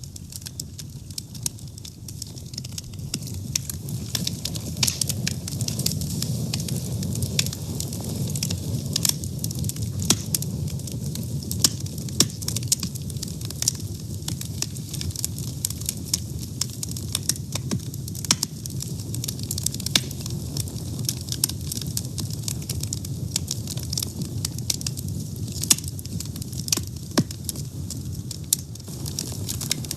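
Wood fire burning, with a steady low roar of flames and frequent sharp crackles and pops.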